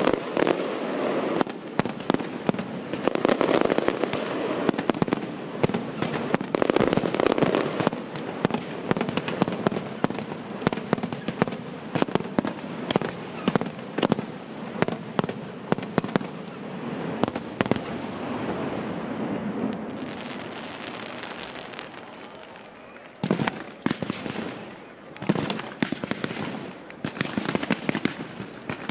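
Aerial fireworks display: a rapid stream of sharp shell bangs over a dense crackle. It thins out about twenty seconds in, then a fresh run of bangs starts a few seconds later.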